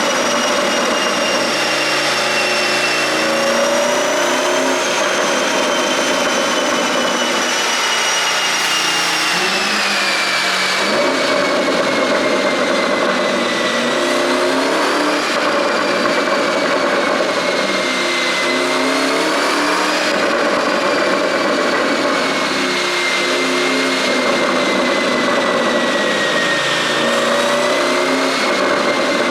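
Porsche Cayenne Turbo GT's twin-turbo V8, running on an aftermarket pop-and-crackle ECU tune, revving up and down again every four or five seconds over a steady high whine that drifts slowly in pitch.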